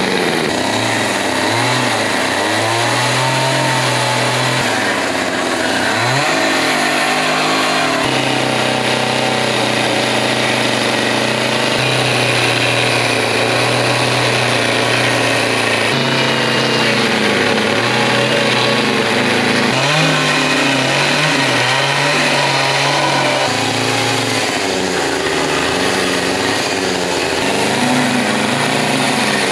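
Small Husqvarna two-stroke chainsaw running and cutting into wood while carving, its engine pitch dipping and rising again and again as the throttle is worked, with steadier stretches at high speed in between.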